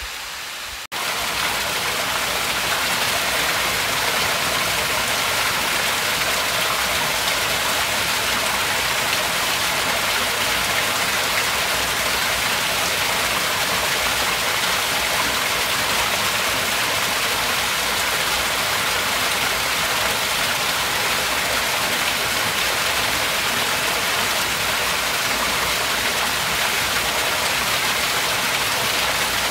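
Small waterfall on Preston Creek pouring between boulders into a rock pool, heard close: a loud, steady hiss and splash of falling water. Just under a second in it cuts in suddenly, replacing a quieter, more distant hiss of water.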